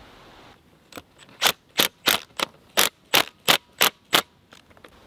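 Cordless drill with a nut-driver bit tightening stainless worm-drive hose clamps on a barbed coupling in black poly water pipe. It sounds as about ten short, sharp bursts, roughly three a second, that stop about four seconds in.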